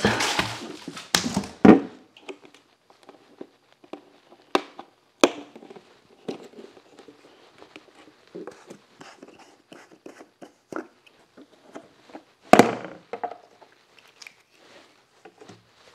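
A plastic five-gallon oil pail being handled: a couple of loud thunks as it is lifted out of a cardboard box and set down, then sharp clicks and light taps as the pull-out pour spout on its lid is worked open, the loudest click about twelve and a half seconds in.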